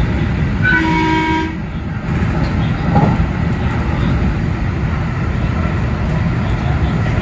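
A JR Central 313-series train's horn sounds one short blast of just under a second, about a second in, over the steady running and rail noise of the train at speed.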